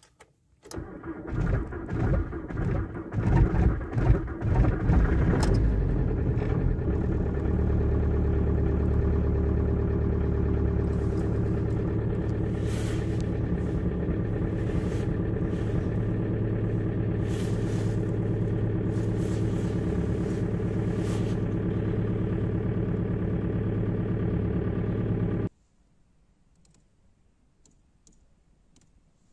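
Volkswagen TDI diesel engine cold start: it catches about half a second in, runs unevenly for the first few seconds, then settles into a steady idle at about 1000 rpm. The sound stops abruptly about 25 seconds in.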